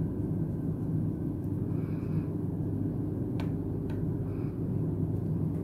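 Steady low rumble of background noise, with two faint light clicks about three and a half and four seconds in as the phone's ribbon-cable connectors are pressed home.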